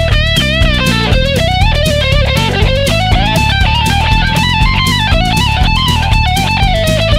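Stratocaster electric guitar playing a boogie lead line with bent notes and vibrato, over a backing track with a steady beat and bass.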